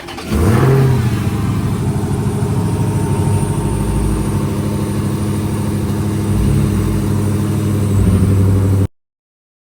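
Dodge Challenger Hellcat's supercharged 6.2-litre Hemi V8 starting: it catches with a quick rev flare about half a second in, then settles to a steady idle. The sound cuts off abruptly near the end.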